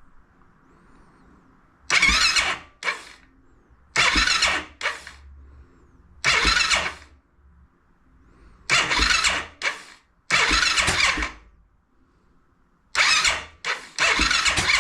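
Honda TRX700XX fuel-injected single-cylinder engine being cranked in repeated short bursts and not catching, spitting and popping back through the intake and air box each time. The backfiring, still there, is a sign of a timing problem, which the owner guesses may be tight intake valves or the CDI and pulser ignition.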